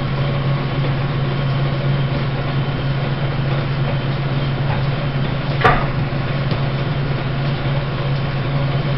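Belt-driven Gray metal planer, about 114 years old, running with a steady low hum as its table strokes back and forth. A brief knock comes about halfway through.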